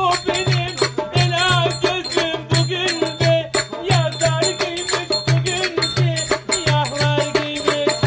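Turkish folk dance music (oyun havası of the Zonguldak–Düzce style): an ornamented, wavering melody over a steady drum beat of about two strokes a second, with brisk high percussion.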